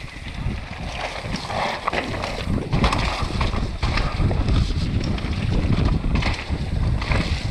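Wind buffeting the microphone of a bike-mounted camera as a mountain bike descends a dirt trail at speed, with tyre rumble over the ground and frequent sharp clicks and knocks from the bike.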